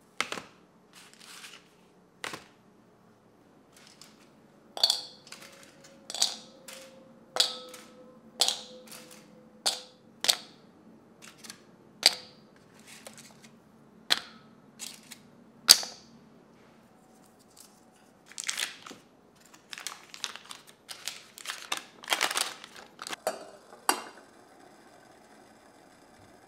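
Squares of bittersweet chocolate dropped one by one into a glass mixing bowl, each landing as a sharp click with a faint ring from the glass, about once a second. Near the end comes a quicker, denser run of clicks and rustling.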